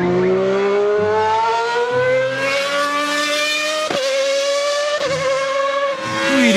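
Formula One race car engine sound, one long steady rise in pitch as if the car is accelerating, with a short click about four seconds in.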